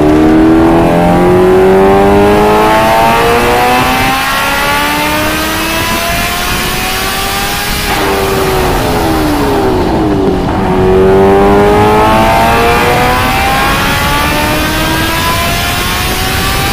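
Motorcycle engine pulling on the move, its pitch climbing slowly as it gains speed. About eight seconds in the pitch drops, then it climbs again from about ten seconds, over a steady rush of wind and road noise.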